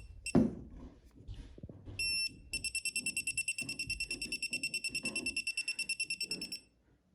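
Non-contact voltage tester beeping: a short high-pitched beep, another about two seconds in, then a fast, even run of beeps for about four seconds that stops near the end. The beeping signals that a wire at the switch is still live.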